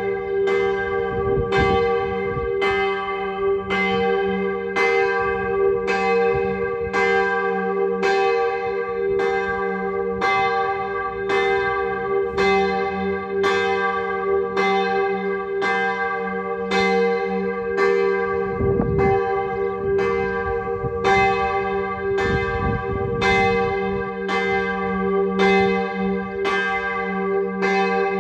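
A single swinging church bell tuned to g', cast in 1959 at St. Florian, ringing alone for the Sterbestundenläuten (hour-of-death tolling). Its clapper strikes at an even pace, a little more than once a second, and the low hum tone rings on between strokes.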